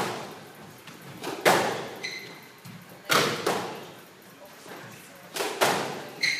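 Squash rally: the ball is struck by racquets and hits the walls and floor, a sharp smack every second or so, each one ringing briefly in the enclosed court. Court shoes squeak on the wooden floor twice, about two seconds in and near the end.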